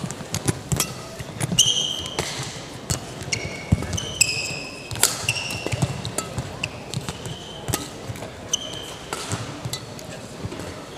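Sports shoes squeaking on a badminton court mat: about a dozen short high squeaks, mixed with scattered sharp taps and knocks.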